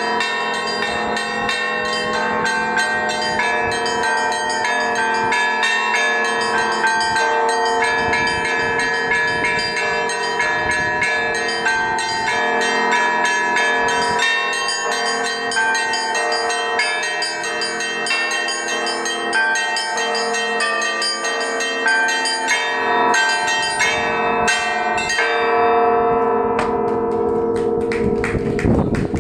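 Russian Orthodox church bells rung by one ringer pulling clapper ropes, playing a festive solemn peal: small bells chime rapidly over steady strokes of the larger bells. About four seconds before the end the quick small-bell strikes drop out and the big bells ring on.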